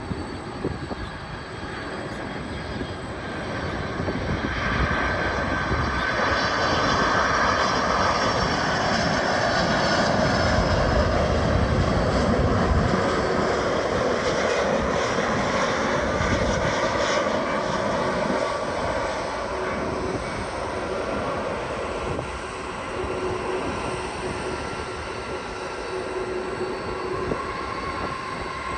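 Jet airliner passing on its landing approach. The engine noise swells over several seconds to a peak about halfway through, then slowly fades, with a steady whine running through it.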